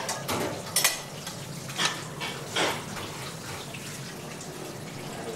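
Kitchen clatter: dishes and cutlery clinking several times over the first three seconds, over a steady background hiss.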